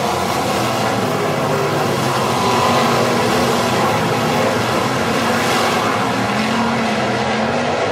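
Several sprint car engines running hard at once, a loud continuous racing din whose pitch rises and falls as the cars go around the dirt oval.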